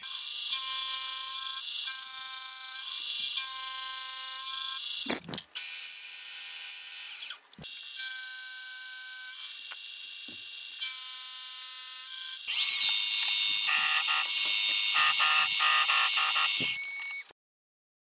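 Carbide face-milling cutter on a milling machine cutting O1 tool steel: a high-pitched whine with steady tones that comes and goes as the cutter works across the blank. It is louder for the last few seconds and then cuts off abruptly.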